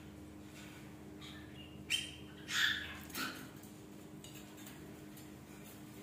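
Young budgerigar being hand-fed from a syringe, giving three short calls between about two and three seconds in, over a faint steady hum.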